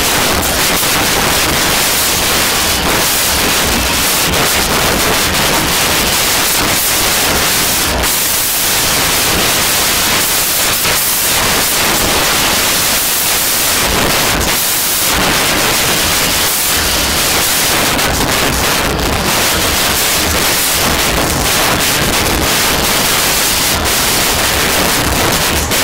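Loud, steady hiss of noise, like static, unchanging throughout.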